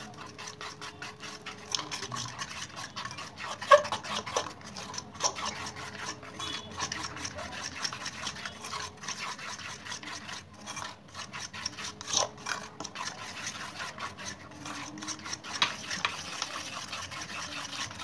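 Cake batter of egg yolk, sugar and rice flour being mixed by hand in a bowl: rapid, even stirring strokes with a scraping click. One sharper knock about four seconds in.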